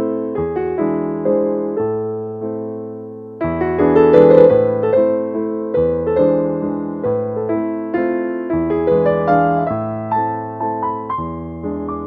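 Slow, gentle solo piano music: notes and chords struck and left to fade, with a louder chord about three and a half seconds in.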